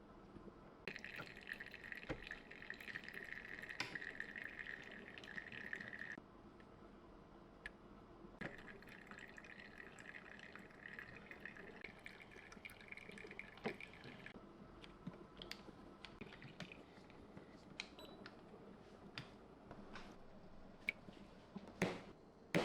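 Espresso dripping and flowing from a MUVNA Mach manual lever espresso machine into a cup during extraction, with two stretches of hissing flow, scattered drips and clicks, and a sharp knock near the end.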